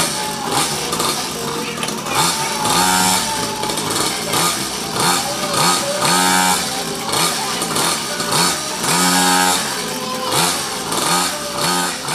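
Lenka 50cc single-cylinder two-stroke mini dirt bike engine running, revved again and again with the throttle, each rev rising and falling in pitch.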